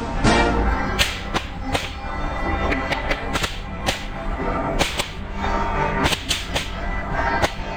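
Fireworks going off: irregular sharp bangs and cracks, several close together, over music playing along with the show.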